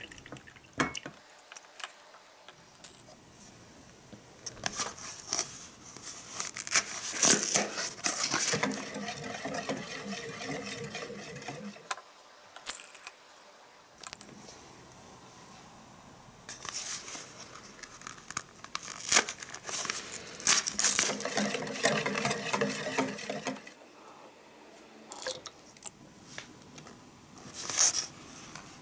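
Liquid gelatin poured from a plastic bowl into the cups of a plastic egg mold, trickling and splashing in two long pours with clicks of plastic on plastic. Near the end a cardboard Jell-O box is handled, rustling.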